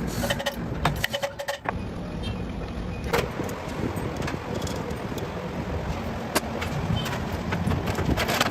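Workshop noise: a steady rumbling background with scattered sharp metallic clinks and knocks.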